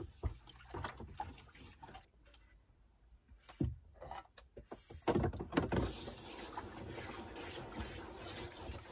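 Dishes knocking and clinking at a sink, then from about five seconds in water running steadily from a tap.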